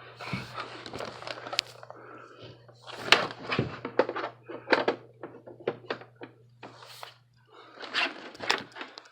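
Handling noises: a string of knocks, clicks and short rustles as objects are moved about and set down, over a steady low hum.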